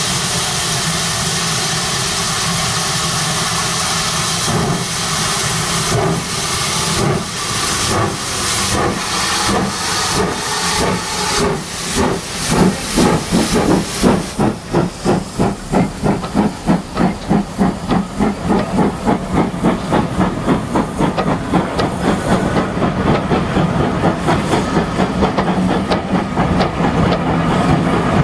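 Steam locomotive pulling away: a steady hiss of steam, then exhaust chuffs that begin slowly about four seconds in and quicken into a fast, even beat.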